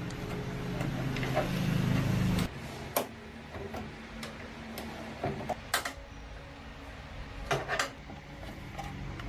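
A low hum from a small motor or power tool for about two and a half seconds that cuts off suddenly, followed by scattered sharp clicks and knocks of tools being handled in repair work.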